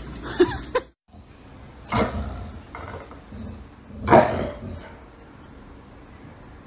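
A yellow Labrador retriever barks twice at a cat, about two seconds apart, the second bark louder.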